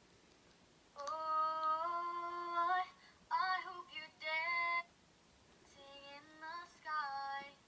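A female voice singing long held notes in three short phrases, with quiet gaps between them.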